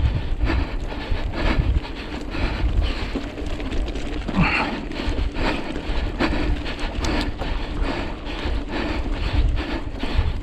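Giant Talon mountain bike rolling over a rough, rocky track, its parts rattling and knocking with each bump, with wind buffeting the microphone and a brief squeak about halfway through.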